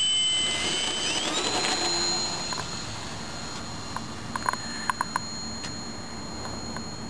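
Electric motor and propeller of an RC scale Beech Staggerwing model whining as it throttles up for takeoff, rising in pitch about a second in. It then holds a steady high whine that grows fainter as the plane climbs away. A few short, sharp sounds come a little after the middle.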